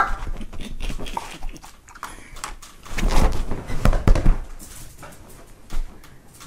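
A dog's noises during rough play, loudest about three to four seconds in, mixed with the rustle and bumps of bodies moving about on a fabric sofa.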